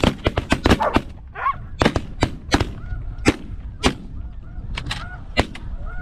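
A volley of shotgun blasts from several hunters: a dozen or so shots in quick, overlapping succession over the first second, then single shots spaced out until about five and a half seconds in. Snow goose calls honk underneath throughout.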